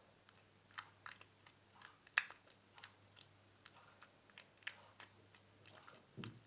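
Freshly made slime being squeezed and stretched by hand, giving faint, irregular sticky clicks and pops, with a soft low bump near the end.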